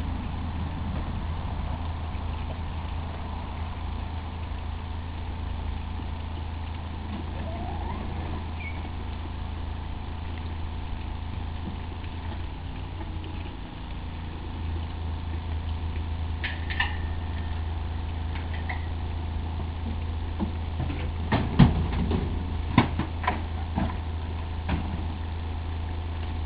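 An engine running steadily at idle, a low even hum throughout. About three-quarters of the way through, a run of sharp knocks sounds over it.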